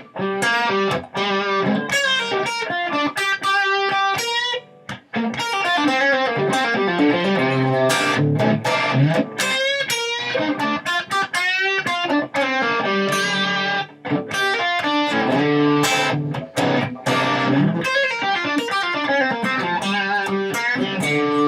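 Electric guitar playing improvised blues lines in G minor pentatonic, a fast run of single notes that moves between two scale positions, with brief pauses about five seconds in and again near the middle.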